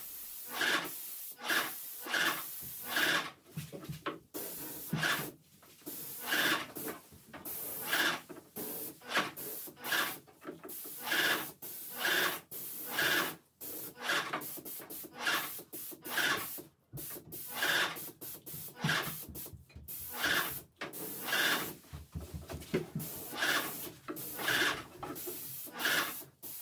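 Graco X17 airless paint sprayer's gun, fitted with a fine-finish low-pressure tip, hissing as it sprays shellac-based primer. The hiss comes in short bursts, about one to two a second, with brief gaps between them.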